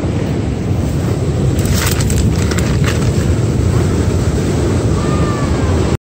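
Wind buffeting the microphone: a steady, loud, low rumble. A few short crackles sound about two seconds in.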